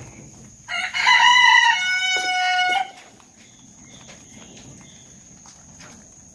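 A rooster crowing once, a cock-a-doodle-doo about two seconds long starting about a second in, its last part held on a steady lower pitch.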